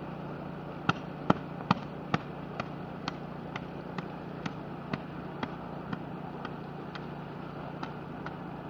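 Steam rushing steadily from a hot crater vent, with a run of sharp pops about two a second, loudest a second or two in and fading toward the end.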